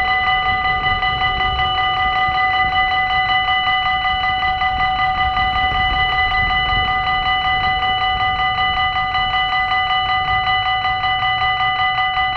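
Dutch level-crossing warning bell ringing steadily with rapid, evenly repeated bright metallic strokes, several a second, the signal that a train is approaching the crossing.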